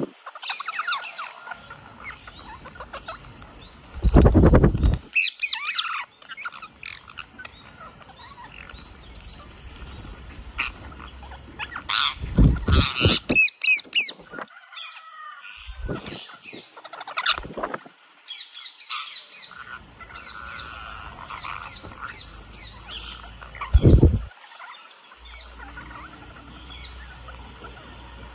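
A flock of rose-ringed parakeets squawking in clusters of short, high calls while feeding. Loud, low whooshes break in three times: about four seconds in, around twelve seconds, and near the end.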